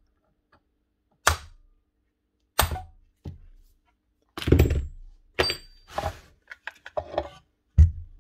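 A hammer strikes a wooden drift against the end of the Makita 1805B planer's drum shaft to drive the drum out of its housing. There are two sharp taps about a second apart, then a lighter one. Then comes a run of clattering knocks as the loosened drum is worked free, ending in a heavy thump.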